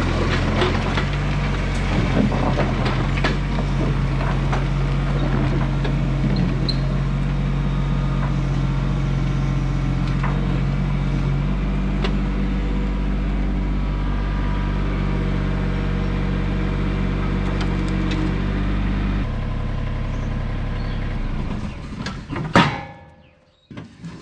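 John Deere compact excavator's diesel engine running steadily as the machine tracks up onto a steel trailer deck, with clanks and knocks from the tracks and the deck. The engine note drops away near the end and cuts out, followed by one sharp loud clank.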